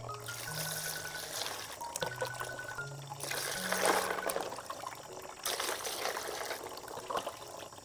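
Water poured from a jug into a basin of snails, splashing and trickling over the shells, with louder surges of the stream partway through.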